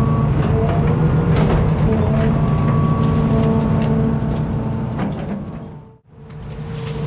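Amphibious Hitachi ZX210 excavator's diesel engine running steadily under a steady whine, with scattered knocks and clanks. The sound fades out to a brief gap about six seconds in and then returns.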